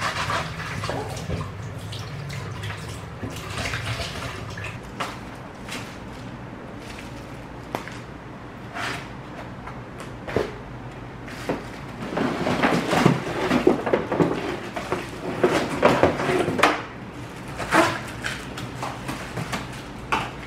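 Scattered clicks and knocks of things being handled, with a busier stretch of clatter from about twelve to seventeen seconds in, over a steady low hum.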